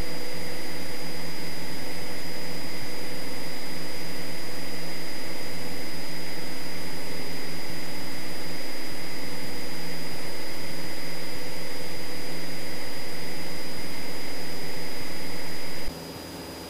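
Cessna 172's piston engine and propeller droning steadily in the cabin during the climb-out after takeoff, with a thin high whine above it. The level drops suddenly near the end.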